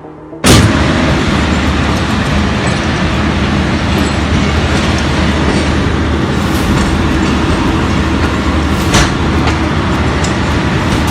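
Train running on the track: a steady rumble and rattle that cuts in suddenly about half a second in, with a few sharp clicks now and then.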